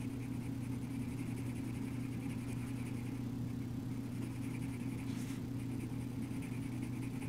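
Red coloured pencil scratching on drawing paper in quick, short back-and-forth strokes, with a steady low hum underneath.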